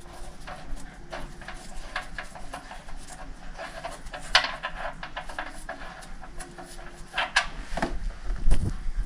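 Clicks and clanks of hand tools and metal parts, with a loud sharp clank about four seconds in, a few more near seven seconds and a heavy low thump near the end.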